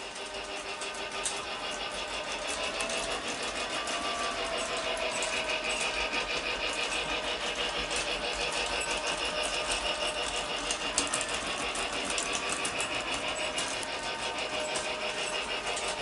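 Lionel Hogwarts Express G-scale model train running on its track: a steady, fast mechanical clatter with a motor hum.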